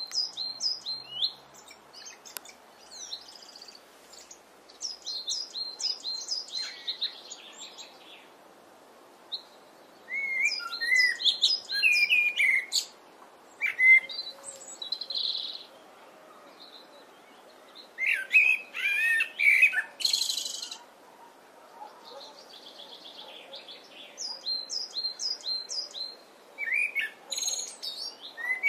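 Common blackbird singing in separate phrases with pauses between them: low fluting notes, each phrase trailing off into high, squeaky twittering.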